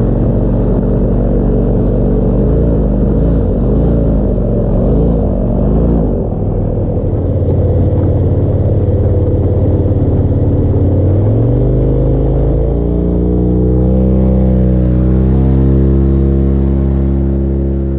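Rescue airboat's engine and propeller running loud and steady, its pitch wavering at first, then climbing about two-thirds of the way through as it speeds up, and fading away at the end.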